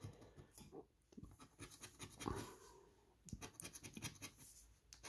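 A coin scraping the latex coating off a scratch-off lottery ticket in quick, faint strokes, with a short pause about three seconds in.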